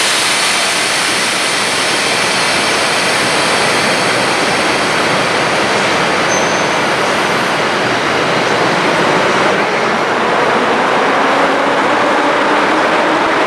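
Polish EU07 electric locomotive hauling passenger coaches slowly alongside a platform, heard under a loud, steady hiss. A low hum from the locomotive comes up in the last few seconds as it draws closer.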